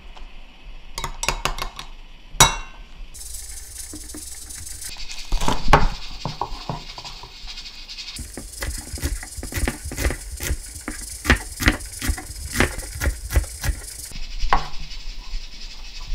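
Chef's knife chopping a green onion on a wooden cutting board: a steady run of sharp knocks, about three a second, for several seconds. Before it come a few light clinks and a louder clatter of kitchen utensils.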